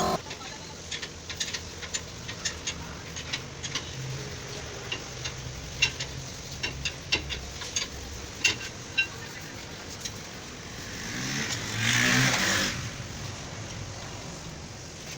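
Scattered light clicks and taps over a low hum, then a passing engine swelling up and fading over a couple of seconds, about eleven seconds in.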